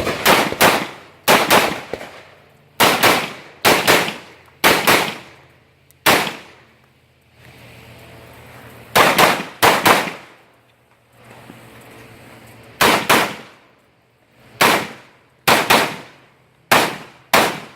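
Rifle shots fired in quick pairs and short strings: about twenty shots, with pauses of a second or more between groups as the shooter moves from target to target.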